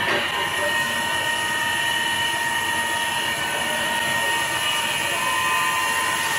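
CNC wood turning lathe cutting a long wooden post, with the blank spinning at about 517 rpm: a steady whine from the spindle drive together with the noise of the cutter shaving the wood.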